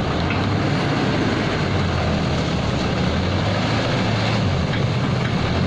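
Backhoe loader's diesel engine running steadily at a constant, loud level.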